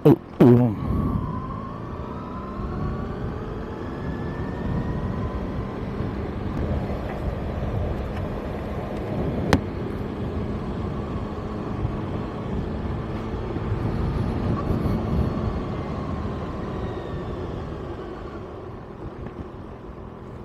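Kawasaki ZX-6R inline-four engine running under way: the revs climb over the first couple of seconds, hold steady, then ease off near the end. A sharp loud knock comes about half a second in, and a short click near the middle.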